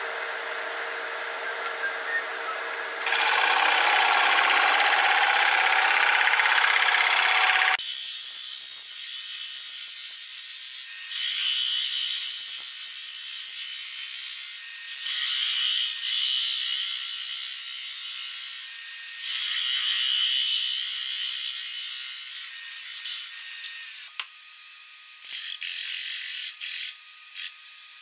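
A 5/8-inch bowl gouge cutting the face of a spinning wooden disc on a wood lathe: a loud, steady hiss of shavings being cut, broken by short pauses when the tool comes off the wood. For the first few seconds the lathe runs with lighter contact. Near the end the cuts become short, separate strokes.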